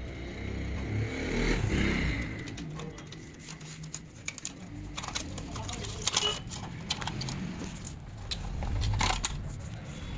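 Hands working on a laser printer's internal parts: scattered clicks, knocks and scraping of plastic and metal as a circuit board is unscrewed and worked loose from the chassis.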